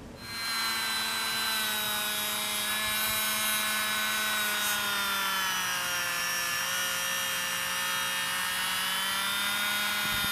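Rotary tool running steadily with a homemade Scotch-Brite disc held against the scratch awl's metal ferrule: a high motor whine that starts just after the opening and dips slightly in pitch midway, then recovers.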